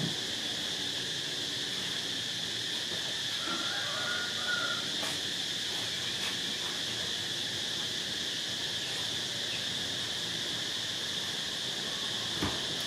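Steady, high-pitched drone of insects, with a soft tap near the end.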